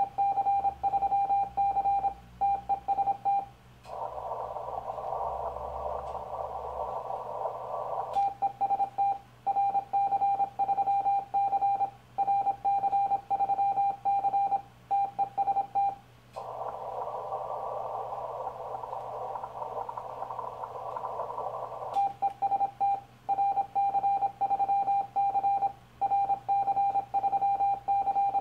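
Morse code CQ call keyed out by an FT-1000MP shortwave transceiver, heard as a single tone near 800 Hz switching on and off in dot-and-dash rhythm, sent three times. Between the calls there are two spells of about five seconds of narrow-band receiver hiss, as the 40 m band is monitored for replies.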